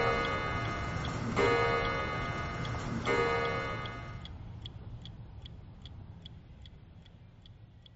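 A clock strikes twice, about a second and a half apart, each strike a ringing tone that dies away, over the steady ticking of a clock at about three ticks a second; everything fades away toward the end.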